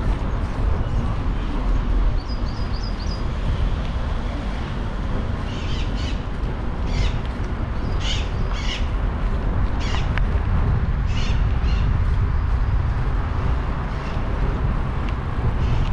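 Birds calling several times: a quick run of four high chirps about two and a half seconds in, then a string of short, harsher calls between about five and eleven seconds. Under them, a steady low rumble of wind on the microphone of a moving bicycle.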